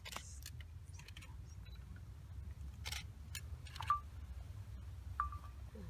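Newborn red wolf pups in a burlap sack: soft rustling and handling clicks over a low rumble, with two short high squeaks from the pups, about four seconds in and again near the end.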